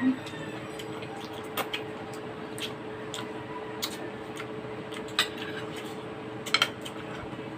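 Spoons and utensils clinking and tapping against a bowl during eating: scattered single sharp clicks, with a quick double tap near the end, over a steady faint hum.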